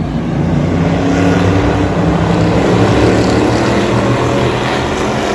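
Race car engines running on the track, a loud continuous drone of several engines that swells a little in the middle.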